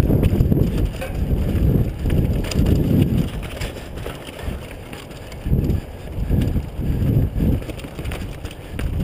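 Wind buffeting the microphone of a GoPro on a mountain bike descending rocky dirt singletrack, in uneven gusts that ease off about halfway through. Tyres roll over stones and the bike rattles over the bumps, with scattered clicks and knocks.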